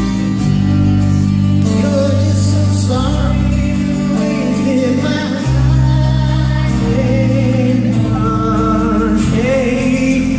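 Live pop song from a male vocal group, singing over a band with sustained bass notes.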